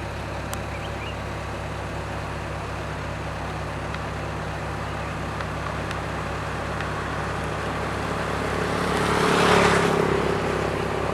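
Road roller's diesel engine running steadily at a paving site, with a vehicle passing close that swells to its loudest about nine and a half seconds in and then fades.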